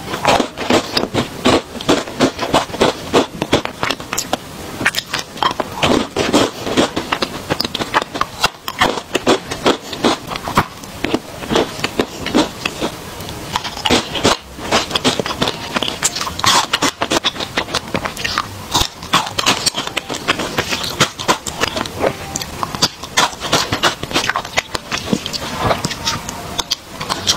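Close-miked mouth sounds of chewing and crunching chocolate candies: a dense run of crisp crunches, clicks and wet chewing, many a second.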